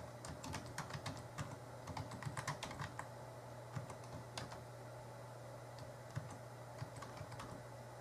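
Typing on a computer keyboard: a quick run of keystrokes for about the first three seconds, then a few scattered single clicks, over a steady low hum.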